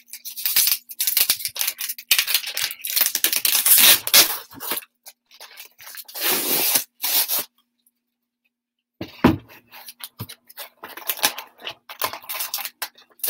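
Cardboard mailer being torn open by hand: repeated rough ripping and scraping of cardboard, stopping dead for about a second past the middle.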